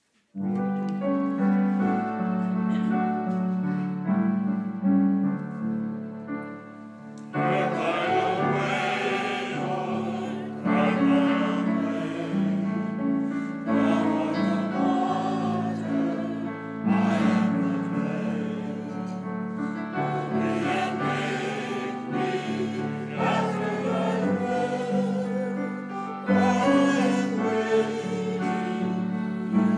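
Church choir and congregation singing a hymn to keyboard accompaniment. The first seven seconds are a keyboard introduction of sustained chords, then the voices come in and sing phrase by phrase.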